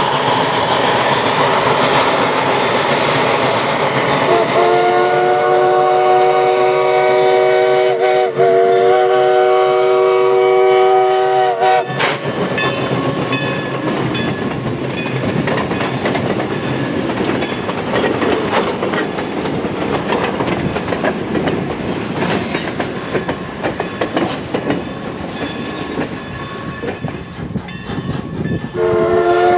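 Steam locomotive No. 11 of the Everett Railroad blowing its several-note steam whistle in a long blast with a brief break, sounding for a road grade crossing as it works past. Then the freight cars roll by with rapid clicking of wheels over the rail joints, and the whistle starts again at the very end.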